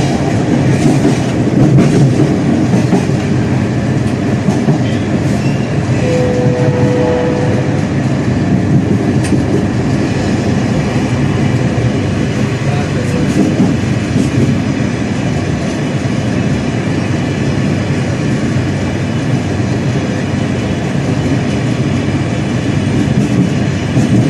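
Train running along the track, heard from its last carriage: a steady loud rumble with wheels clattering over the rails, and a brief steady tone about six seconds in.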